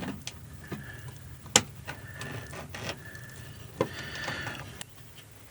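Small sharp clicks and taps of hand work while the centre of a hole is marked out, the loudest about a second and a half in, over a faint low hum.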